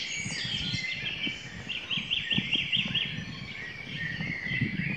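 Dawn chorus of several songbirds singing at once, blackbirds among them, with a quick run of about seven repeated notes around two seconds in. Low irregular thuds lie underneath.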